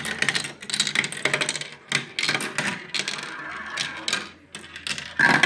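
Marbles rolling and clattering down the tracks of a toy marble run, a run of irregular clicks and rattles with one louder clack near the end.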